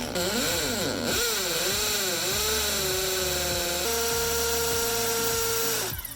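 Power drill boring into brick. Its motor pitch wavers up and down as the bit loads, then holds steady before stopping just before the end.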